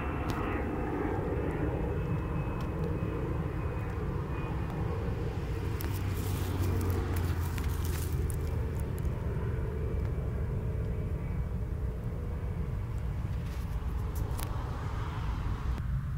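Steady low rumble of outdoor background noise, with clusters of light crackles around the middle and near the end.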